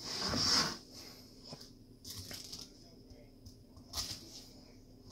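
Chef's knife cutting across pineapple spears on a plastic cutting board: a short hiss at the start, then a few faint knocks of the blade and one sharper knock on the board about four seconds in.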